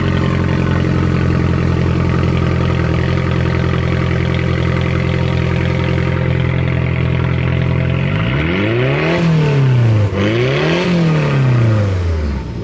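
Nissan Z's V6 engine running at a steady speed. About eight seconds in, the revs rise and fall twice.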